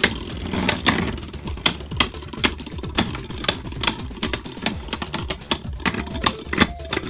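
Two Beyblade Burst tops, Cho-Z Achilles and Dread Bahamut, spinning and clashing again and again in a plastic Beyblade stadium. Sharp clacks come unevenly, about two or three a second, over a low whir.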